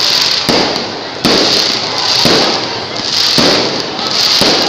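Fireworks going off in a dense, continuous crackle, with sharper bangs about once a second.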